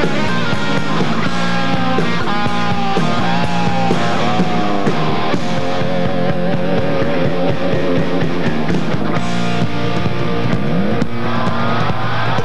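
Rock music with guitar, playing steadily throughout.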